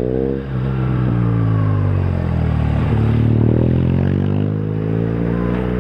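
A motor vehicle's engine running steadily, its pitch falling in the first second, holding low, then rising again around four seconds in.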